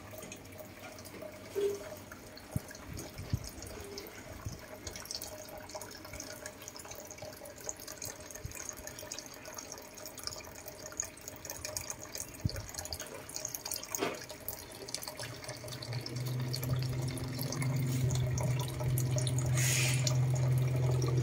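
Water trickling and dripping in a large clay basin, with scattered small clicks and ticks. A steady low hum joins about three-quarters of the way through and grows louder.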